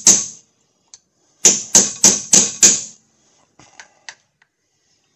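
Hammer blows ringing on steel as the old sensor ring is worked loose: one strike, then a quick run of five strikes about three a second, followed by a few light clicks.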